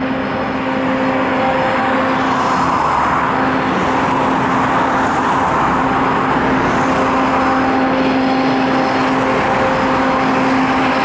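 2TE25KM two-section diesel locomotive hauling a freight train, its diesel engines giving a steady drone that holds one pitch, over a continuous rushing noise, as the train approaches.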